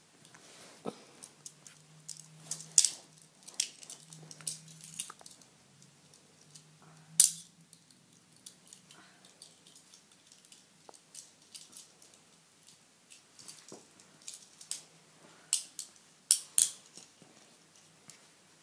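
Metal handcuffs clinking and clicking as they are handled, in irregular sharp clicks with a few louder clacks about 3 s and 7 s in and twice near the end.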